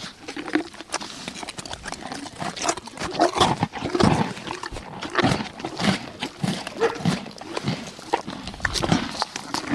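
Animals making a busy run of many short, overlapping calls and noises.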